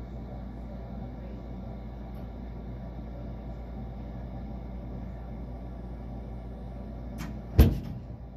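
Gas furnace starting up: a steady low mechanical hum, then a light click and a loud, sharp thump near the end.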